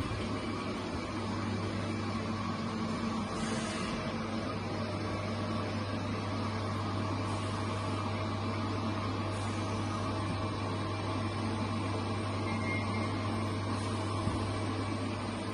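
Mikron WF 31 C tool milling machine running with a steady low hum.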